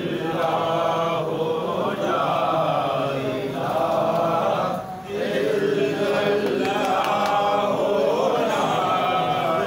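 Many men's voices chanting together in unison in long held phrases, with a brief break about five seconds in.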